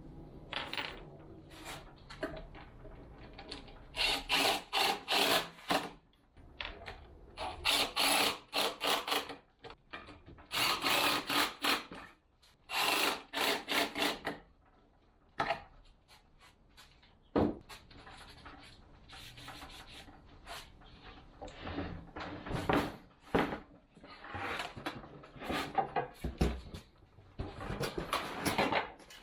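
Wood being worked by hand in quick back-and-forth rubbing strokes, in bursts of a second or two with short pauses between.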